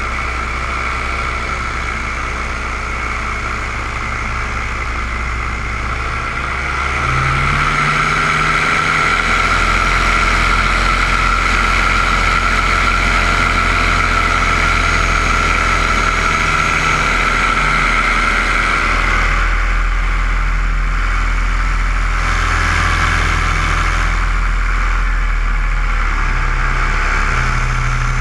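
Light aircraft engine and propeller running steadily. About seven seconds in, the engine note rises and grows louder, then holds, with a small shift in pitch near the end.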